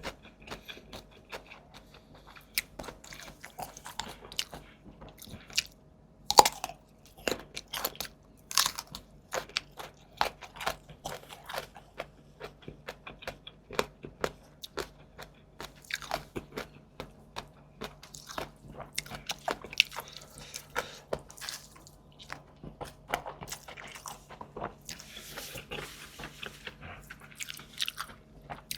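Close-miked eating: a person biting and chewing food with irregular crunches and wet mouth clicks.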